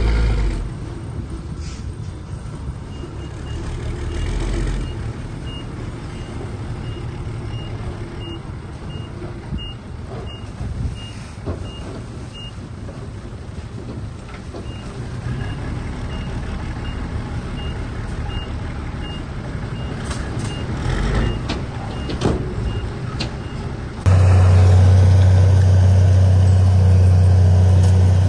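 Diesel earthmoving machinery, a bulldozer and dump trucks, running with a steady low engine rumble while a backup alarm beeps about twice a second as a machine reverses. The alarm stops, and about 24 seconds in a much louder, steady, deep engine drone cuts in abruptly.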